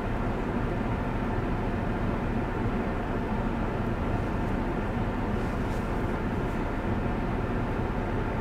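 Car being driven at a steady pace: even tyre and engine noise with a low hum underneath.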